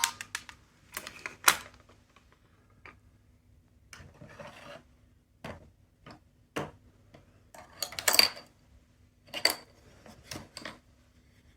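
Irregular clicks, knocks and light clatter of small plastic capsule toys being handled, with a few brief rubbing sounds and a cluster of louder knocks about eight seconds in.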